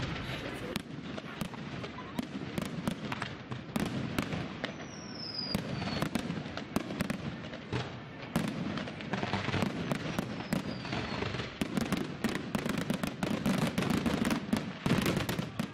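Fireworks display: a steady run of shells bursting with sharp bangs and crackles, the bangs coming thick and fast near the end. A short falling whistle sounds about five seconds in and again about halfway through.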